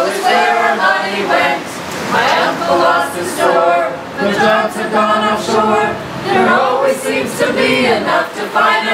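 A group of people singing together, unaccompanied, in sustained phrases.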